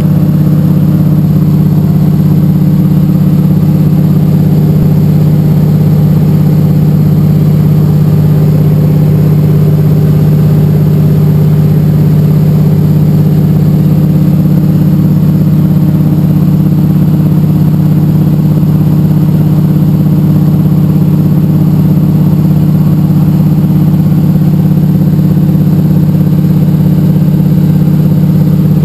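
De Havilland Canada DHC-2 Beaver's nine-cylinder Pratt & Whitney R-985 Wasp Junior radial engine and propeller running steadily in flight, heard from inside the cockpit. A loud, even drone that holds one pitch throughout.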